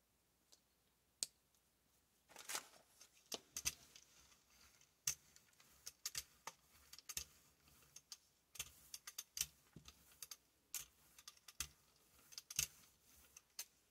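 Hand brayer rolled back and forth through wet acrylic paint on a gel printing plate: a lone click about a second in, then a run of faint, irregular sticky ticks and clicks.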